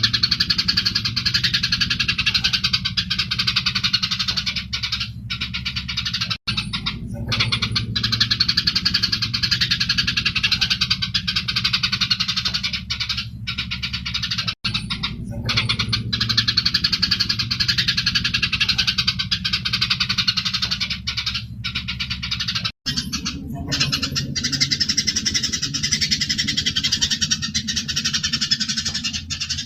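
Eurasian tree sparrows chattering densely and continuously in a fighting exchange, with a steady low hum underneath. The sound cuts out for an instant about every eight seconds and the same stretch of chatter starts again.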